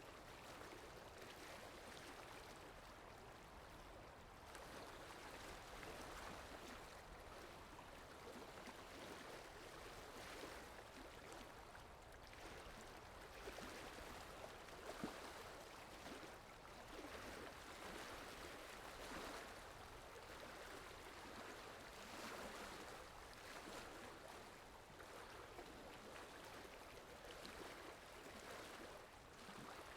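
Faint water lapping with wind, a continuous wash that swells and ebbs every few seconds, with one brief sharper splash about halfway through.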